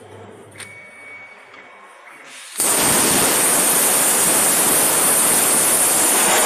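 Hypertherm 45 A plasma cutter on a CNC table, quiet at first, then firing its arc about two and a half seconds in with a sudden loud hiss that runs on steadily as it cuts 6 mm stainless steel plate.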